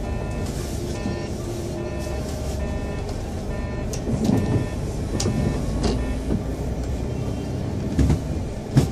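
Car interior noise while driving on wet roads: steady engine and road noise with the hiss of tyres on wet tarmac. A few short knocks come around the middle and near the end.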